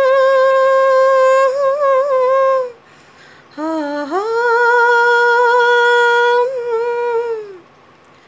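A woman humming unaccompanied in two long held notes. The first is steady with a small ornament just before it ends about two and a half seconds in. After a short pause the second slides up into a held note and tails off near the end.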